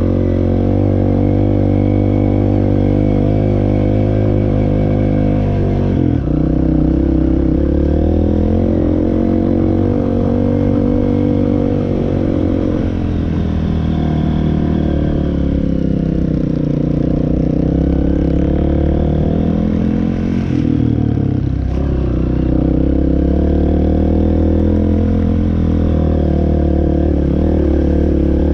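Off-road riding machine's engine running under load, its pitch rising and falling with the throttle; the note drops about six seconds in and swells and dips several times after.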